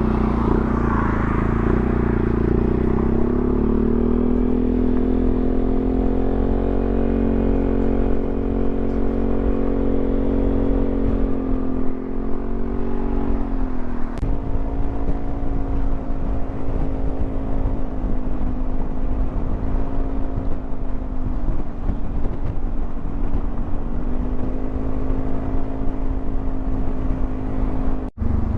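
Yamaha XMAX 300 scooter's single-cylinder engine running at cruising speed, its pitch rising a little, then easing off and picking up again a couple of times, over a steady low rumble of wind and road. The sound cuts out briefly near the end.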